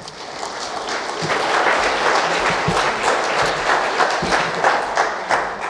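Church congregation applauding, many hands clapping. It swells over the first second or two and dies away near the end.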